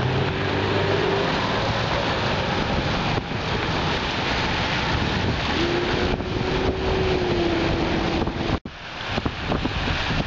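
Strong wind buffeting the microphone in the wake of a hurricane, with a faint engine-like hum twice, near the start and again for a couple of seconds later on.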